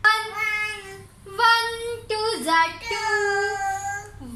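A young child singing in a high sing-song voice, about four drawn-out phrases, as in a chanted times-table recitation.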